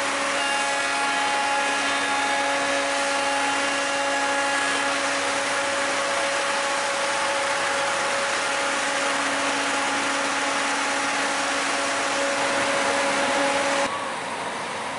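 Biodiesel cog-railway locomotive coming down the mountain: a steady mechanical drone and whine with a few held tones. It becomes quieter and duller abruptly about a second before the end.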